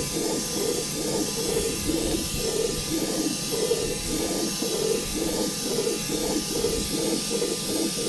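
Coredy R750 robot vacuum running in spot-clean mode on a hard floor: steady suction-motor noise with a thin high whine and a low hum that pulses about twice a second as it circles.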